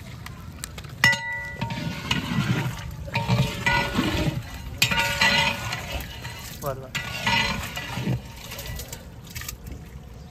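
A long-handled metal spoon clinking against the rim of a large aluminium cooking pot (degh) and stirring through steaming liquid: one sharp metallic clink with a ringing tone about a second in, then several scraping, sloshing strokes.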